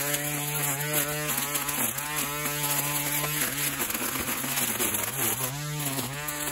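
String trimmer starting up abruptly and running at speed as its line cuts into vines and brush, a steady whine that sags in pitch for a moment several times as it bites into growth.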